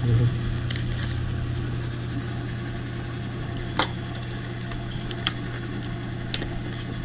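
Three sharp metallic clicks, a second or so apart, as a motorcycle's locking fuel-tank cap is pushed shut and locked with the key, over a steady low hum.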